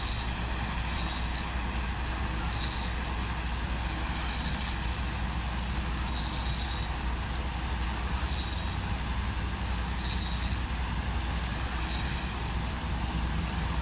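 Steady low outdoor rumble, with a short high buzz repeating about every two seconds.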